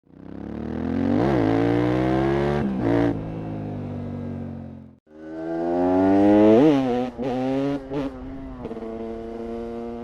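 KTM 690 SMC R's single-cylinder LC4 engine revving, its pitch climbing and then dipping, with quick throttle blips. It comes as two short stretches that each fade in and out, the second starting about five seconds in.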